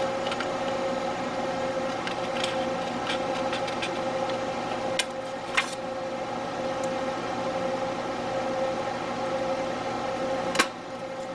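A few short snips of small scissors trimming the edge of a paper planner page, with a sharper snip near the end. Underneath runs a steady mechanical hum.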